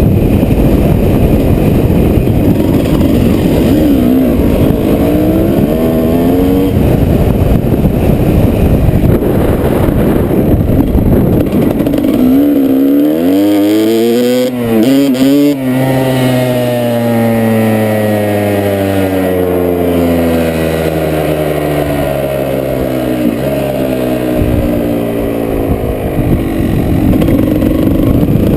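Strong wind buffeting the microphone in a dust storm, with a motor vehicle's engine over it. The engine climbs in pitch, tangles briefly about halfway through, then falls steadily in pitch for about ten seconds, as a vehicle passing and moving away would.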